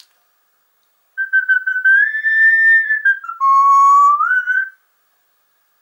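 Whistling: a short phrase of held, clear notes that starts about a second in, rises slightly, drops to a lower note for about a second, then slides back up and stops.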